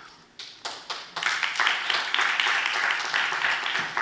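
Audience applauding: a few scattered claps at first, then steady clapping from about a second in.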